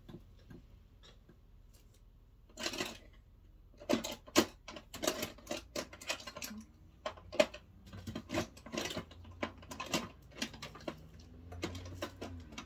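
Makeup items being rummaged through in search of a brush: a quick, irregular run of light clicks and clatters of hard objects, starting after a couple of quiet seconds.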